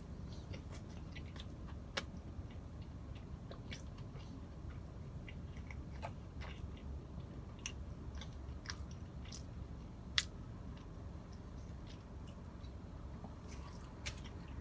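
Close-miked chewing of a soft cream-filled donut, with small wet mouth clicks and smacks scattered throughout. Two sharper clicks stand out, about two seconds in and near the ten-second mark.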